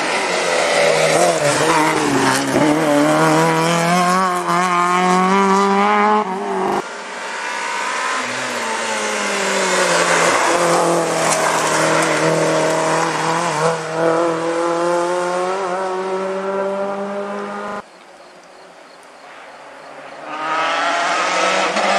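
Rally car engines revving hard and rising and falling through the gear changes as cars come up the stage and pass one after another. The sound cuts abruptly about seven seconds in to the next car, and again near eighteen seconds to a faint engine that grows louder as another car approaches.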